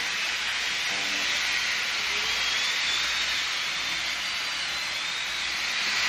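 Experimental noise music: a steady, bright hiss like white noise, with faint high whistling tones wavering through it.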